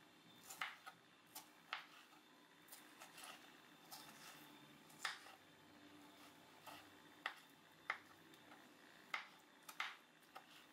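Kitchen knife dicing tomato on a wooden cutting board: sharp, irregularly spaced taps of the blade striking the board, some in quick pairs.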